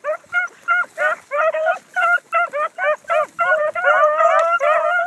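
A pack of hounds baying on a trail: a quick run of short, pitch-bending cries, several a second, with more hounds crying over one another in the second half.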